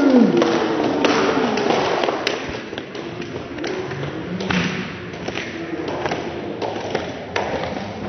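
Scattered knocks and thuds, irregular and a second or so apart, as concrete blocks and broken roof-tile pieces are handled on a mat, over a low hiss of room noise.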